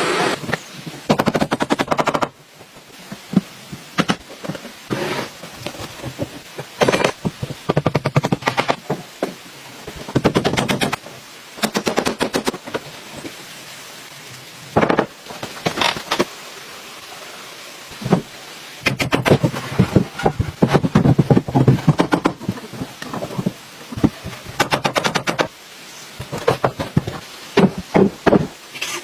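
Repeated sharp strikes on wood in rapid bursts of many blows, with short pauses between the bursts, as in hand tool work on a timber building.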